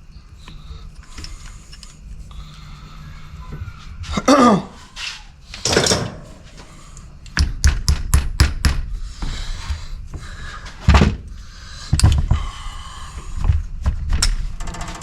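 Metal parts and hand tools clunking and knocking during the strip-down of a tractor hydraulic valve: scattered thuds, a quick run of clicks about halfway through, and a short falling squeak near the start.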